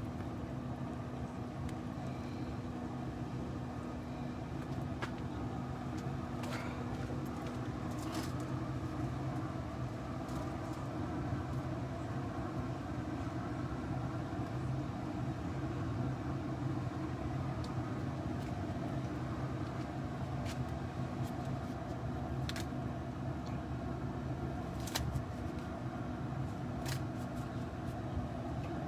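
Steady low mechanical hum with a few faint clicks and taps scattered through it.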